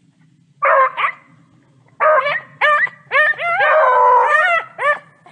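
Beagles baying while running a cottontail's scent trail: two short bays about half a second in, then a quick run of short bays from about two seconds in, with one longer drawn-out bay near four seconds, stopping just before five seconds.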